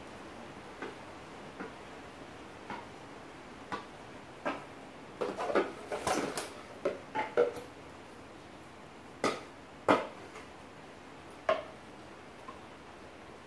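A series of light clicks and knocks of small hard objects, about a dozen at irregular intervals, bunched together in the middle, with the loudest pair about two-thirds of the way through.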